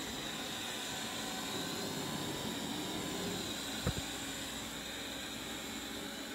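Roborock S6 robot vacuum running on carpet: a steady whir from its suction fan and brushes with a faint high whine held throughout. A single short knock about four seconds in.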